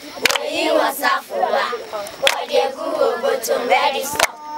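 A group of children singing together unaccompanied, with sharp handclaps every second or so.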